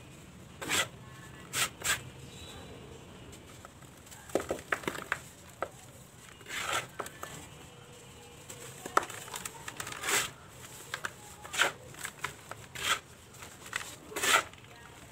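Dry, dusty cement balls crushed and crumbled in bare hands: about a dozen short, gritty crunches at uneven intervals, the loudest near the end.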